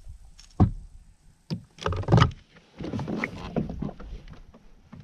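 Knocks, bumps and rustling on a fishing kayak as the angler moves from standing to sitting in its seat: a sharp knock about half a second in, a louder cluster of bumps around two seconds in, then more shuffling.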